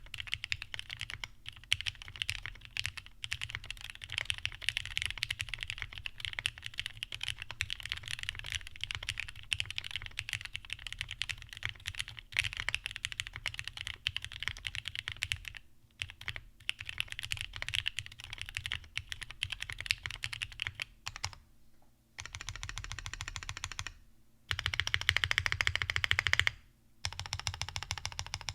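Typing on a PCB-mounted mechanical keyboard with lubed Cherry Top JWK SoHo switches and thick ABS GMK Beta keycaps: a steady run of keystroke clacks with a couple of brief pauses. Near the end come a few spells of very fast, evenly spaced strokes.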